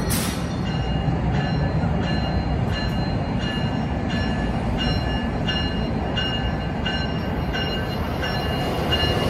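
A train's bell rings steadily, about one and a half strokes a second, over the low rumble of a train in the station.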